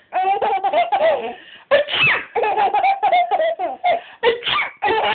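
A baby laughing in repeated high-pitched bursts, with a short pause about one and a half seconds in.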